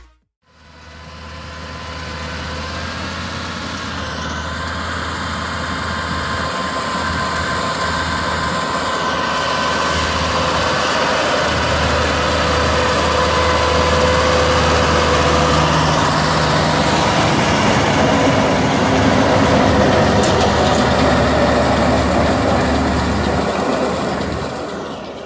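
Turbocharged five-cylinder air-cooled diesel engine of a SAME Tiger 100 tractor running steadily under load while it drives a Feraboli Extreme 265 round baler picking up and baling straw. The sound fades in over the first couple of seconds and fades out near the end.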